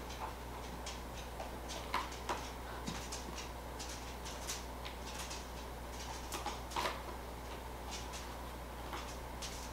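A cat's paws on cardboard shipping boxes as it walks and climbs over them: irregular light ticks and scratchy taps, with a few louder taps about two seconds in and again around seven seconds, over a low steady hum.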